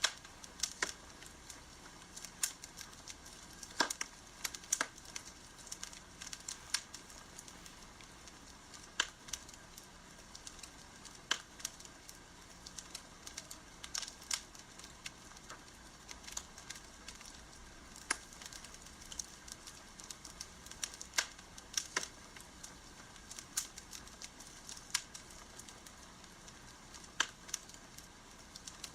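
Wood fire crackling: sharp, irregular pops and snaps, a few every couple of seconds, over a faint steady background.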